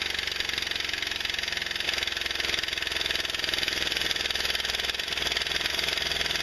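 Pneumatic impact wrench hammering steadily on a rusted 3/8 in. sump bolt of a small Briggs & Stratton engine; the bolt is seized with rust and won't turn.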